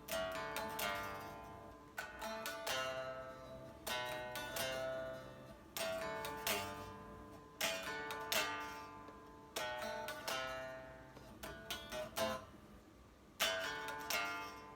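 Solo guitar playing an instrumental passage with no voice: chords struck about every one to two seconds, each left to ring and fade before the next.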